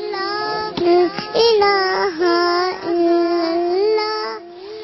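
A young girl singing a naat, an Urdu devotional song, in long held notes that bend and waver in pitch; her voice fades away near the end.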